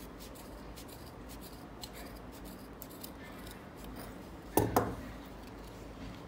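Large brass-handled tailor's shears snipping through folded denim: a run of faint blade clicks, then a sharp double clack about four and a half seconds in.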